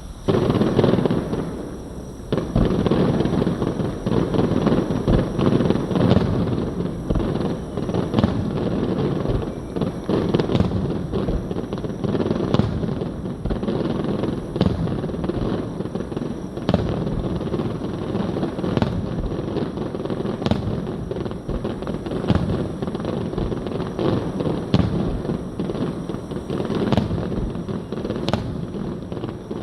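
Fireworks display: a steady barrage of shell bursts booming and crackling in quick succession, with a loud burst just after the start and sharp individual reports standing out every second or two.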